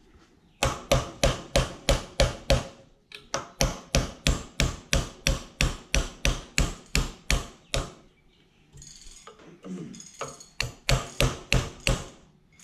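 Ball-peen hammer striking a steel pin punch, driving a roll pin out of a Toyota 1UZ-FE idle air control valve body held in a vise. The blows come in three runs of sharp metallic strikes, about three a second, with short pauses between.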